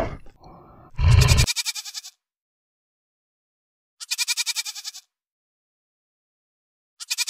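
Goat bleating three times, each bleat about a second long and made of a quick, wavering pulse. A short deep sound comes just before the first bleat, about a second in.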